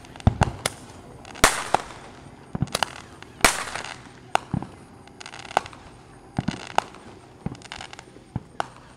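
Distant aerial fireworks bursting: about a dozen sharp bangs at uneven intervals, the loudest about three and a half seconds in.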